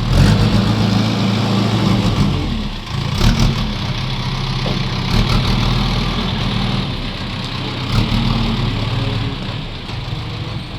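A JCB construction machine's diesel engine running, its note dipping and picking up again a few times, with a few sharp knocks.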